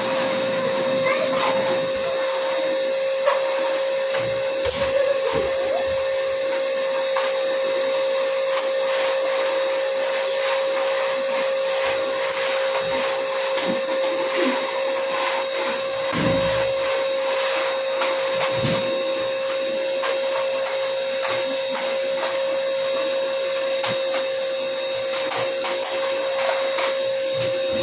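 A small electric appliance motor running steadily, a constant high hum over an even hiss of air.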